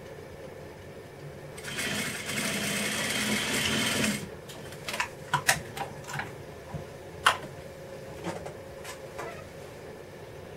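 Juki industrial sewing machine stitching in one short run of about two and a half seconds, starting about a second and a half in, over a steady low hum. A series of sharp clicks and taps follows, the loudest about seven seconds in.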